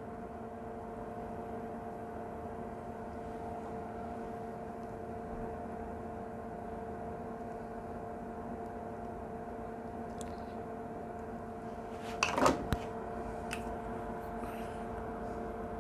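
Steady electrical hum with a few constant tones, from the soldering bench's equipment, during quiet hand soldering of wires to connector pins. A short cluster of sharp taps and clicks comes about twelve seconds in.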